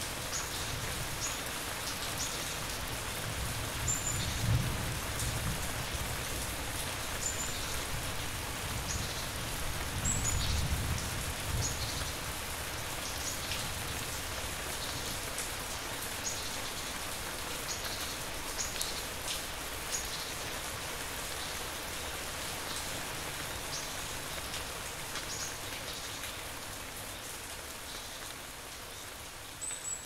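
Steady rainfall with scattered distinct drops pattering on a surface. Two brief low rumbles come about four and ten seconds in, and the rain fades a little toward the end.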